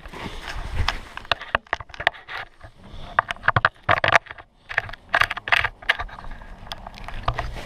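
Irregular crunching and scraping in deep snow, short sharp crunches in clusters with brief pauses between them, like someone wading through it on foot.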